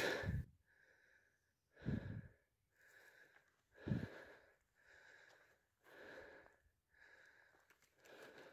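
A person's faint, heavy breathing, about one breath a second, with two louder low bumps near 2 and 4 seconds in.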